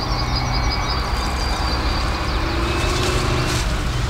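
Steady low rumbling background noise with a hiss over it, unbroken throughout.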